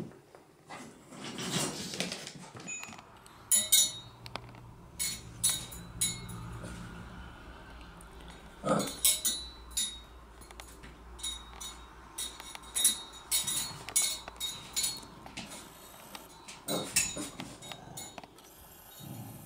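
A metal spoon hung on a cord from a chair clinks and rattles against the chair's steel legs as a puppy paws and bites at it. The clinks come irregularly, many of them with a brief bright metallic ring.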